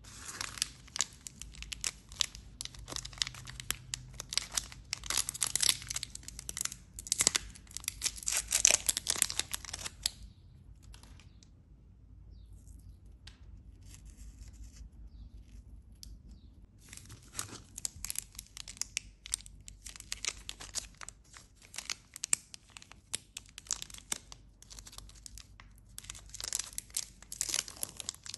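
Plastic and foil chocolate-bar wrappers crinkling and tearing as they are peeled open by hand. About ten seconds in the crackle dies down to faint handling for several seconds, then the wrapper crinkling starts up again.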